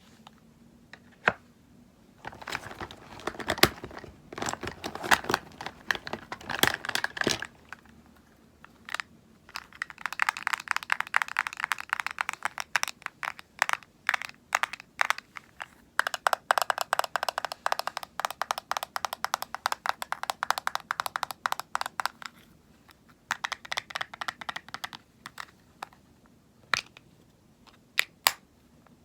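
Cosmetics handled close to the microphone: a few seconds of crinkling and crackling, then long runs of quick clicking taps.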